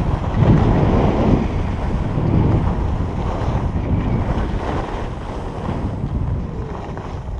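Wind buffeting an action camera's microphone as a skier runs down a groomed piste, with a rushing hiss of skis on packed snow. The sound eases off gradually toward the end.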